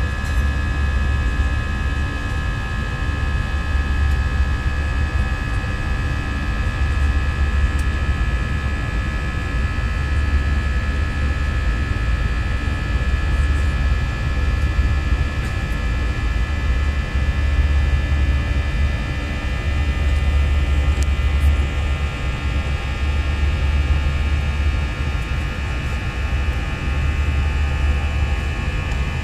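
Airbus A320's jet engines heard from inside the cabin while climbing out after takeoff: a steady loud low rumble with several steady whining tones above it.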